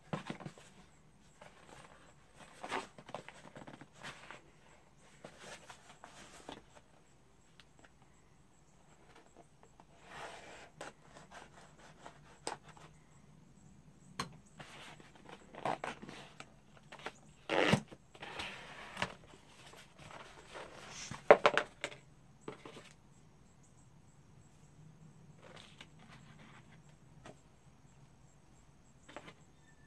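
Paper and cardboard packaging being handled and unwrapped by hand: irregular bouts of rustling and crinkling, with two sharper, louder crackles a little past halfway.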